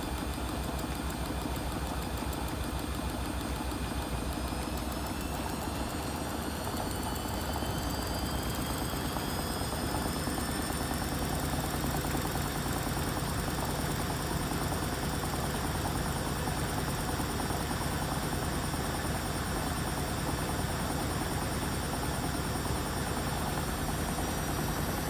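Vestel washing machine's drum motor speeding up into a spin with a rising whine, then spinning steadily at high speed with a constant whine and hum.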